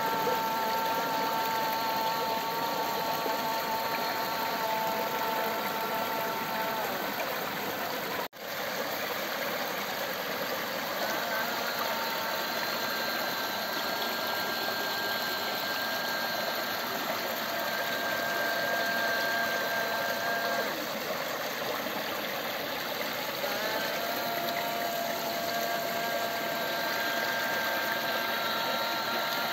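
Mountain stream water running over rocks in a steady rush. Above it a few steady high tones hold for several seconds at a time and shift in pitch now and then. The sound drops out briefly about eight seconds in.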